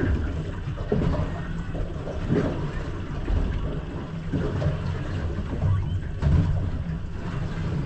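Muffled underwater sound from a GoPro in a sealed housing on the seabed: a steady low hum with a wash of water noise.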